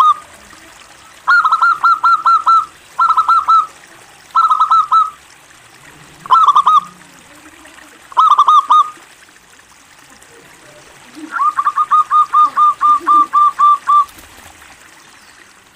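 Local zebra dove (perkutut) cooing in six phrases of quick, clipped repeated notes. The last phrase is the longest, about three seconds at roughly five notes a second.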